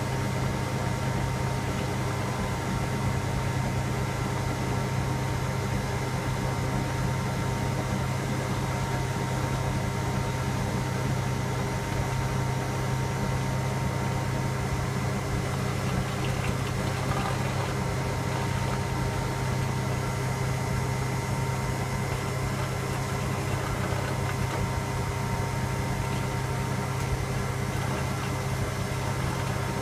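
Electra AWF683 washing machine running with a steady low hum and a few constant whining tones above it, level and pitch unchanged throughout.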